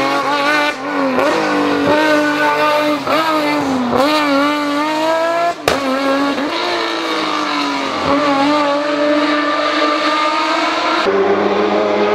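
BMW M3 race car's engine at full throttle, its pitch climbing and dropping back again and again as it changes gear, with one sharp crack about halfway through. About eleven seconds in the sound changes abruptly to a more distant engine.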